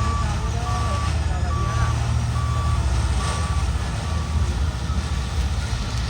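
A vehicle reversing alarm beeps at a single pitch about once a second over a steady low engine rumble. The beeping stops about four and a half seconds in, while the engine keeps running.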